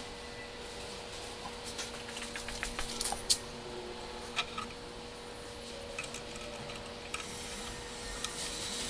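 Small clicks and taps of tiny screws, plastic spacers and a circuit board being handled and pressed against wood, with one sharper click about three seconds in. A steady hum runs underneath.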